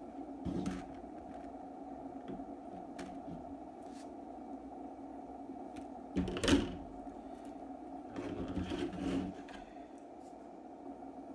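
Scissors cutting into a cardboard mailer, with the card and paper rustling and scraping as it is handled; a sharp clack about halfway through is the loudest sound. A steady low hum runs underneath.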